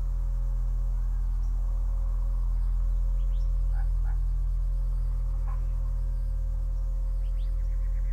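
A steady low drone with a faint higher tone held above it, and a few short scattered chirps over the top.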